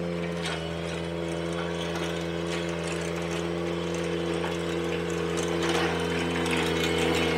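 Ventrac compact tractor with a power rake attachment running steadily, its engine drone holding one pitch while the rake drum churns through driveway gravel, growing slightly louder near the end.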